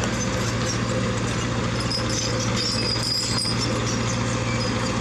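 Heavy diesel engine running steadily with an even low hum, from one of the machines at a truck recovery.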